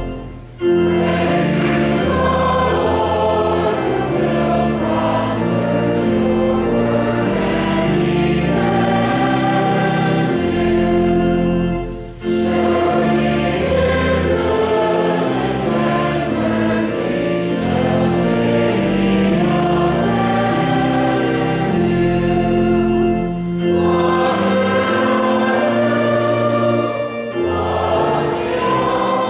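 Choir and congregation singing a hymn to organ accompaniment, with short breaks between phrases.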